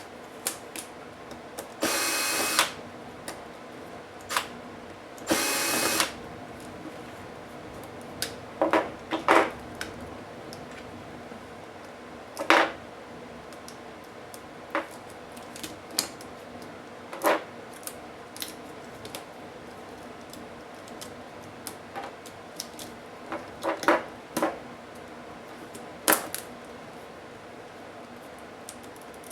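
Small electric screwdriver running in two short whirring bursts a few seconds apart, as screws are driven out during a laptop teardown, with scattered sharp clicks and taps of small parts being handled.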